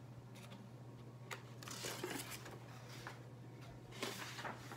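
Faint rustling and soft clicks of a picture book's pages being handled and turned, over a steady low hum.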